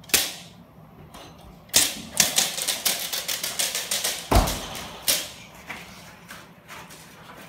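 A stick striking during dog bite-training agitation: a sharp crack, then a fast clattering run of smacks for about two seconds, a heavy smack about four and a half seconds in, and a few lighter cracks after.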